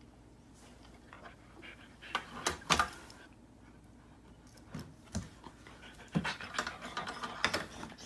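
A dog panting, with scattered sharp clicks and taps that come thickest from about six to seven and a half seconds in.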